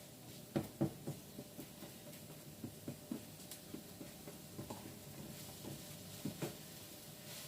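A cooking utensil tapping and knocking against a pan in a few short clusters, over a steady low hum.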